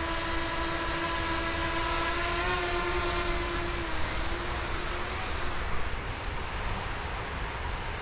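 Quadcopter drone's propellers whining steadily as it lifts off, stepping up slightly in pitch about two and a half seconds in, then fading away by about five seconds in. A steady rushing noise runs underneath.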